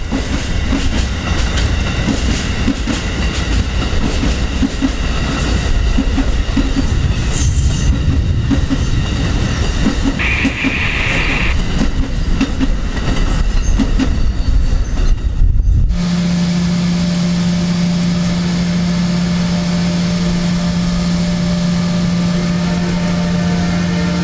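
An Amtrak passenger train's cars rolling past, with rumbling and clickety-clack of wheels over the rail joints and a brief high squeal about ten seconds in. About sixteen seconds in it cuts off suddenly, replaced by a steady low drone with fainter higher tones.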